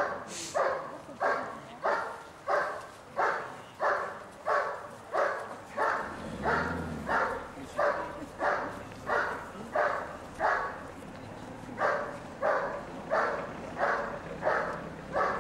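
German shepherd barking steadily and rhythmically at a hiding blind, about three barks every two seconds, with a short pause past the middle: the bark-and-hold on the helper in an RCI protection routine.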